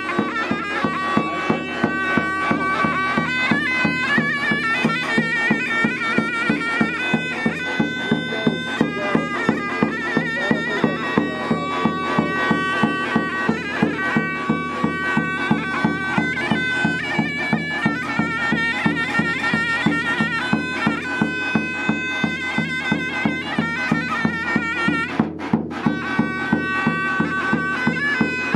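Turkish folk music on davul and zurna: a shrill, reedy zurna melody over a steady beat of the big davul drum, about three strokes a second. The melody breaks off for a moment near the end.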